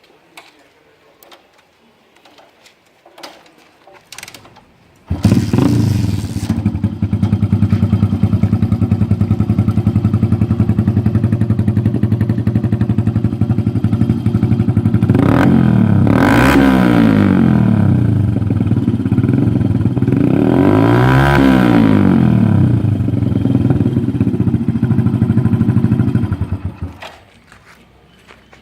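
Hero Splendor motorcycle's single-cylinder four-stroke engine breathing through an Austin AR aftermarket silencer: it starts about five seconds in, idles steadily, is revved up and back down twice, then is switched off near the end. A few faint clicks come before the start.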